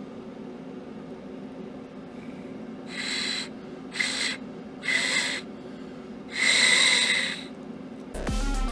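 Stainless steel Aztec death whistle blown four times: three short blasts and then a longer, louder one, each a breathy, screeching shriek.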